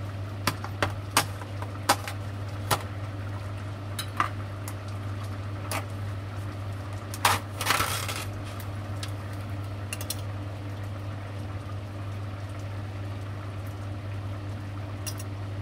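Thick coconut-milk vegetable stew simmering in a pot, with scattered sharp pops and clinks and a brief rustling clatter about seven seconds in, over a steady low hum.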